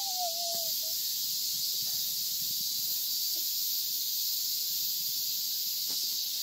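A steady high-pitched hiss throughout, with a brief squeak at the very start.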